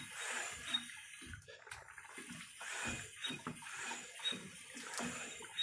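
Warm engine oil gurgling and slurping as a vacuum oil extractor sucks it out through the fill tube of a small snowblower engine, in irregular short bursts.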